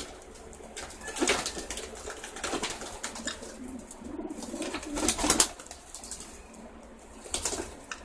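Racing pigeons bathing in a shallow tub of water: several short bursts of wing-flapping and splashing, the loudest about five seconds in, with pigeons cooing in between.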